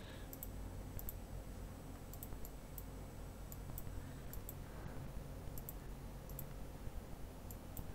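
Faint computer mouse clicks, scattered and irregular, over a low steady hum of room tone.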